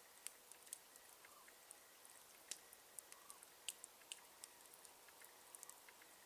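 Campfire burning quietly, the wood giving irregular sharp crackles and pops, a dozen or more of them.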